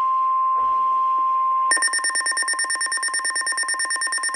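NOAA Weather Radio 1050 Hz warning alarm tone, one steady high tone. About a second and a half in, a weather radio receiver's alert alarm takes over: a shrill electronic beeping of several pitches at once, pulsing about nine times a second.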